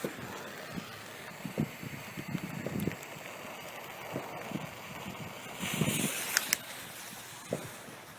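Scattered soft thumps of footsteps and handling over light outdoor background noise, with a short hiss and two sharp clicks about six seconds in.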